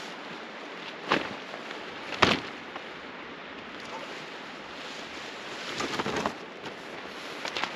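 Several sharp knocks and clatters over a steady background hiss: one about a second in, the loudest just after two seconds, a rapid cluster near six seconds and another short one near the end.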